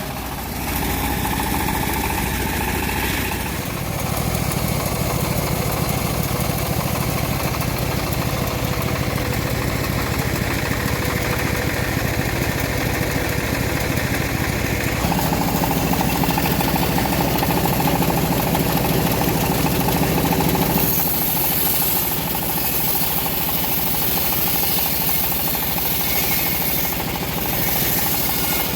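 Engine-driven home-built bandsaw mill running steadily while sawing a teak log. Its note shifts about 4 seconds in, again about halfway through and once more a few seconds later.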